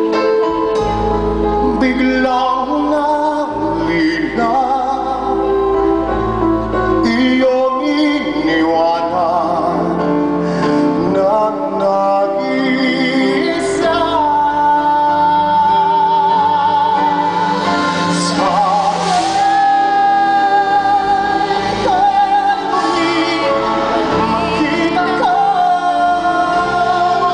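A male vocalist singing a ballad live with a band of electric guitar, bass and drums behind him, holding long notes with vibrato about halfway through and again later.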